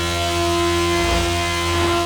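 Motorcycle engine running at steady revs with wind and road noise.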